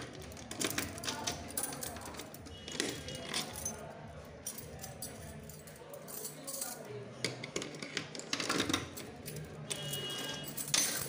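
A bunch of metal keys jangling and clinking while a key is worked in the lock of a steel safe door, with repeated sharp clicks and rattles of the lock and keys.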